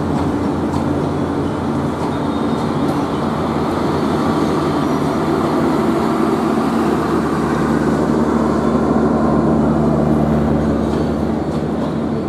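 Bangladesh Railway intercity passenger coaches rolling past: a steady rumble of wheels on rail with a low hum and scattered clacks. It swells to its loudest a little past the middle and eases off near the end.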